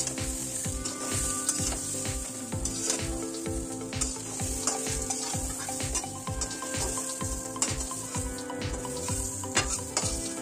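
Pointed gourd and potato pieces sizzling in hot mustard oil in a kadhai, with a metal spatula scraping and clicking against the pan as they are scooped out.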